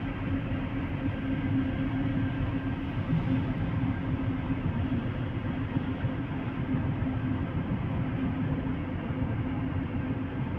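Steady low mechanical rumble of heavy machinery running, with a constant low hum.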